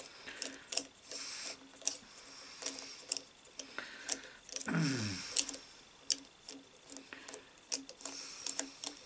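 Small metallic clicks and taps as terminal nuts and link wires are worked loose in the terminal box of a Brook Gryphon capacitor-start motor. The clicks come irregularly, several a second at times, with a brief low sound falling in pitch just before halfway.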